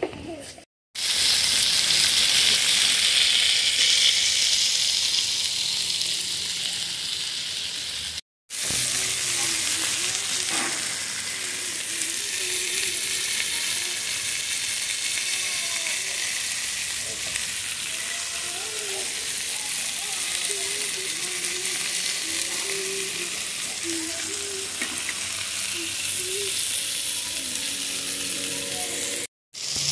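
Burger patties, chopped onions and potato wedges sizzling on a Blackstone flat-top griddle: a steady frying hiss. The hiss drops out to silence briefly three times, about a second in, about eight seconds in and near the end.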